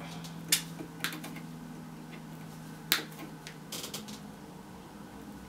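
Wire cutters snipping through strands of galvanised chicken wire: a few sharp, separate snips a second or more apart, with a small quick cluster near the end.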